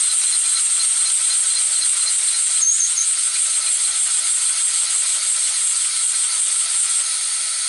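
Model diagonal paddle steamer engine running on compressed air: a loud, steady hiss of air escaping through its leaks and exhaust, with a faint quick regular pulsing in it, cutting off suddenly at the end as the air is shut off.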